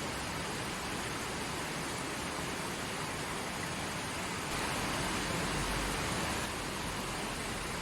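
Forest stream flowing, a steady rush of running water that swells slightly for a couple of seconds past the middle.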